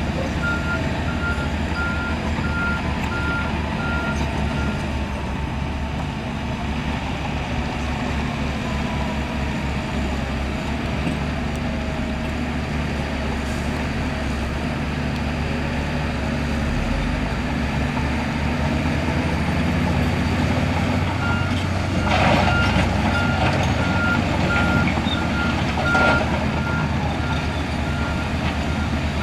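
Heavy earthmoving machine's diesel engine running steadily under load, with its reversing alarm beeping in a regular series for the first few seconds and again from about two-thirds of the way through. Two short, louder noises come near the end, while the alarm is sounding.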